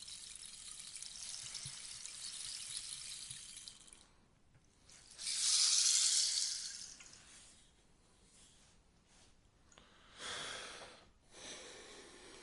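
Rainstick being tipped, its filling trickling down the tube with a pattering, rain-like hiss. A steady pour for the first few seconds, then a louder pour swelling and dying away about five to seven seconds in, then two shorter pours near the end.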